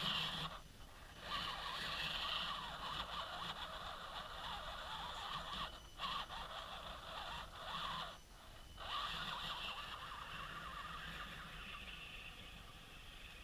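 Axial SCX10 RC crawler's electric motor and gear drivetrain whining as it crawls, cutting out briefly three times as the throttle is let off.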